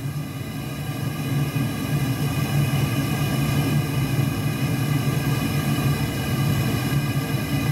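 Amal gas burner firing a gas-bottle heat-treating forge, running steadily with a low hum and faint higher tones. It is at full gas, set very rich, while the forge climbs toward 800 °C.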